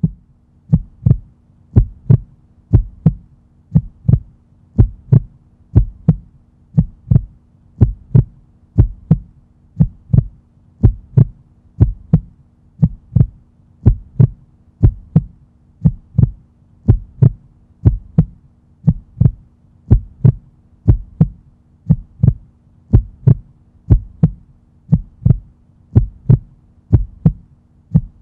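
Heartbeat: a steady lub-dub double thump about once a second, over a low steady hum.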